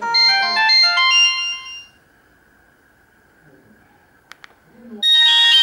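Samsung GT-E1200Y phone playing its original built-in ringtones. A quick run of bright electronic notes plays for about two seconds and stops; two clicks follow, then a second, busier ringtone starts near the end.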